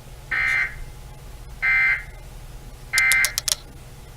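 Emergency Alert System end-of-message data bursts: three short, buzzy digital tones, each about a third of a second long and about a second and a third apart, signalling the end of the alert message.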